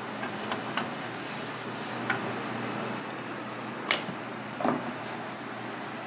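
Sea robin (red gurnard) pieces deep-frying in a small pan of oil, a steady sizzle. A few sharp clicks and taps of a spoon and a plastic container sound over it, the sharpest about four seconds in.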